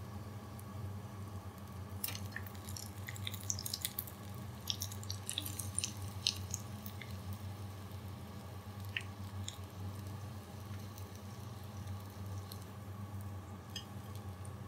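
Hot frying oil crackling and popping around breadcrumb-coated chicken nuggets as they are lifted out on a slotted spoon to drain. The crackles come thickest between about two and seven seconds in, then thin out to a few pops, over a steady low hum.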